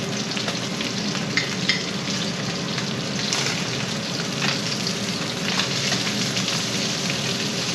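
Sheepshead fish pieces sizzling steadily as they pan-fry until crispy in a skillet, with a few light clicks as the pieces are turned in the pan.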